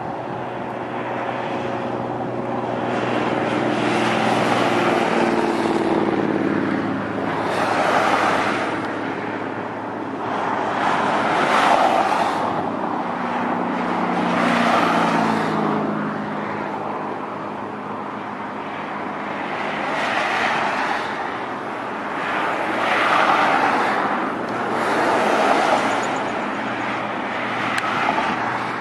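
Douglas DC-3's twin radial piston engines droning as the airliner flies low toward the listener. Its pitch slides down twice, and the loudness swells and fades every few seconds.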